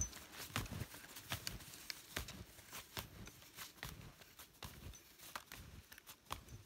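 Snowshoe footsteps in fresh snow: a steady series of soft crunches, about two a second.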